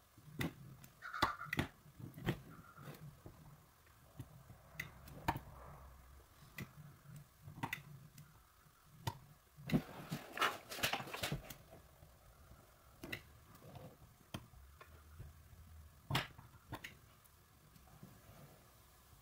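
Scattered faint clicks and crackles, with a denser cluster about ten seconds in, as a hot plastic welding gun melts a filler plastic strip into a crack in a snowmobile hood.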